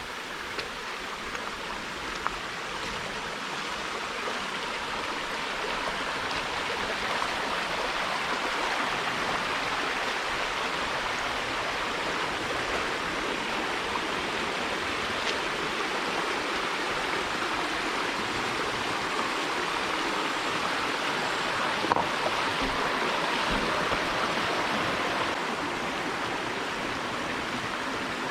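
Valley stream water running steadily, growing a little louder over the first several seconds, with a few faint ticks.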